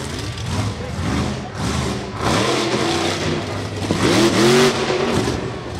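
Monster truck engine revving hard in repeated swells, its pitch climbing and dropping several times, loudest about four seconds in.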